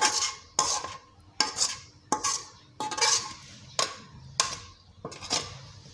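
A utensil knocking against a bowl in regular strokes while food is mixed. There are about eight sharp clinks, a little under a second apart.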